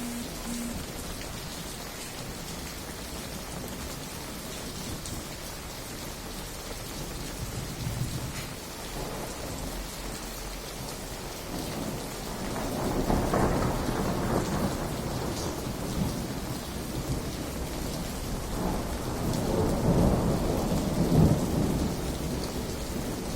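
Steady rain falling, with thunder rumbling twice in the second half, each roll swelling up and fading over a few seconds.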